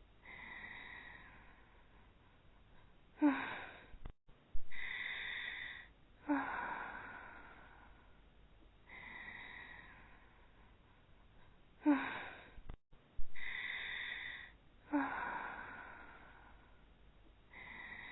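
Voice-acted snoring of two sleeping cartoon girls: slow breathy snores, each swelling and fading, broken by short sighs that fall in pitch. The same cycle repeats about every eight and a half seconds.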